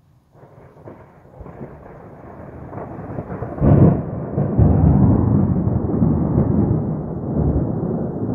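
Thunder: a crackling rumble starts about a third of a second in, builds, peaks in a loud crack just under four seconds in, then keeps rumbling.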